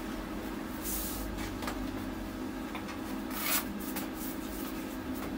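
Short rustles and scrapes of a plasma cutter's torch cable being handled and moved over the bench, the loudest a little past the middle, over a steady low hum. No cutting is heard.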